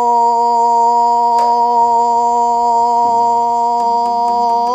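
A woman singing sijochang, Korean classical sijo chant, holding one long, steady, unbroken note on a vowel. Right at the end the held note starts to waver up and down.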